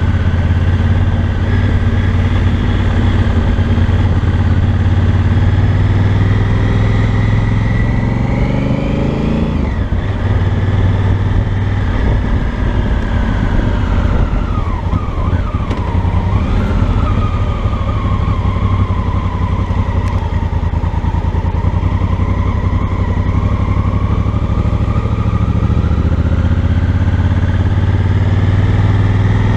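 Honda Africa Twin Adventure Sports parallel-twin engine and exhaust at low speed. The pitch climbs steadily as the bike pulls away and drops abruptly about ten seconds in as the throttle is rolled off, then climbs again near the end.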